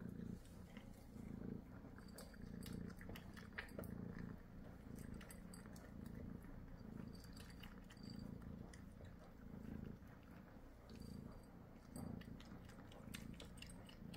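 Domestic cat purring while being stroked, a low rumble swelling and fading at a regular pace, with light clicking crunches of dry kibble as it eats.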